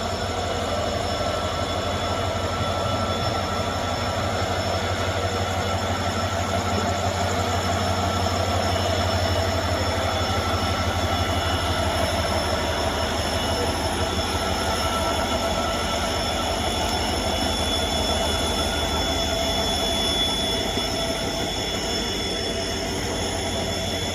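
WDG-4 diesel-electric locomotive's 16-cylinder two-stroke EMD diesel humming: a steady, deep, evenly pulsing throb with several thin, steady high whines layered over it.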